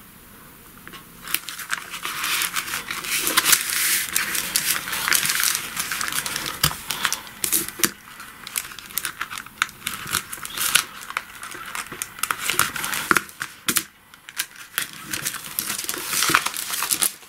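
Masking tape peeled off its roll with a crackling rip, pressed along the edge of paper envelopes and cut with scissors, amid the rustle of the stiff paper envelopes being handled. The crackling pauses briefly about thirteen seconds in, then paper rustling resumes.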